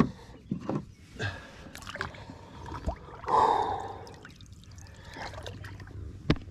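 Light knocks on the hull of a plastic pedal-drive kayak and splashing water as a just-landed fish is handled and let go over the side, with a louder splash-like burst about three seconds in.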